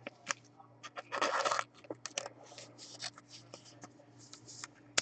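Trading card being handled and slid into a clear plastic sleeve or holder: soft plastic rubbing and scraping, with a short burst of rubbing about a second in and scattered light clicks.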